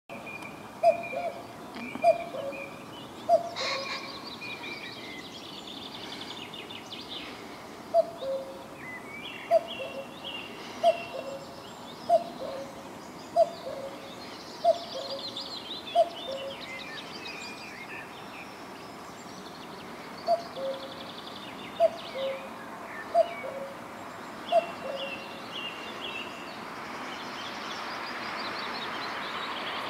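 Common cuckoo calling its two-note falling "cuck-oo", about one call every 1.3 s, in three runs of three, seven and four calls with pauses between.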